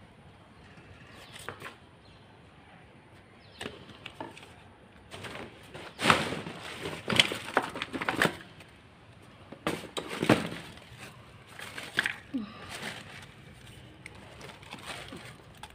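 Rubbish being rummaged through by hand: plastic bags rustling and crinkling, with objects knocking and clattering in irregular bursts, busiest through the middle.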